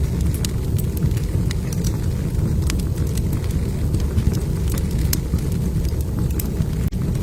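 Wood fire burning in a fireplace: a steady low rumble of flames with frequent small, sharp crackles and pops from the logs.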